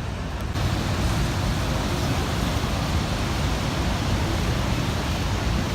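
Steady rushing noise of Niagara Falls' water pouring over the falls, stepping up suddenly about half a second in and then holding even.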